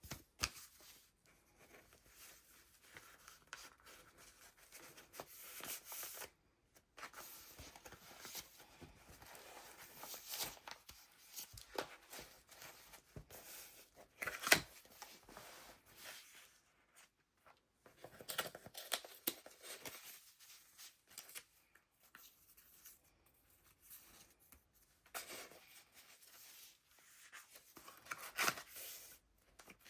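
Paper pages of a handmade junk journal being turned and handled: soft, irregular rustling and crinkling of layered paper, with a few sharper page flips, the loudest about halfway through and near the end.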